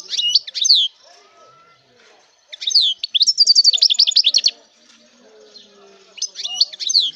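A songbird singing in three high-pitched phrases: a short one at the start, a longer one from about two and a half seconds in with a fast run of repeated notes, and another short one near the end.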